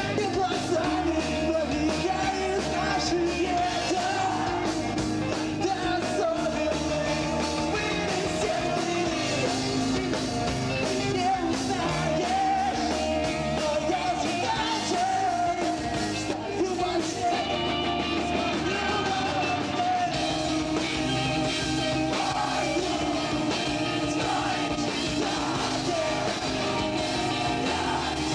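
Emo rock band performing live, a voice singing over the full band.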